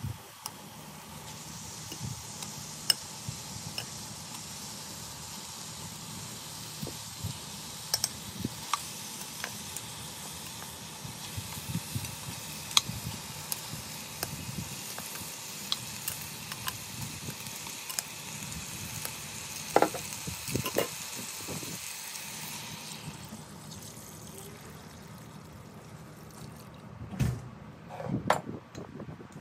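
Food sizzling in hot oil in a cooking pot, a steady hiss with scattered sharp clicks; the sizzling dies away a little after twenty seconds in, and a few knocks follow near the end.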